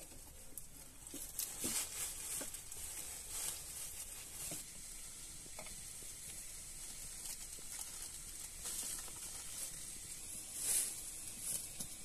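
Small wood fire crackling, with scattered pops and ticks over a soft steady hiss, and a louder burst of crackling near the end.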